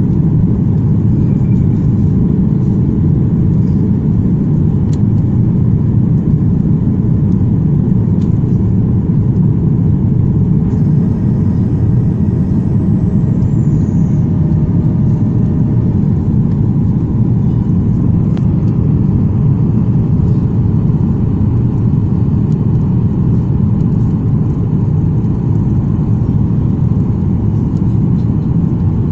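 Steady low cabin noise of a jet airliner in flight on its descent to land: engine and airflow rumble heard from inside the cabin at a window seat.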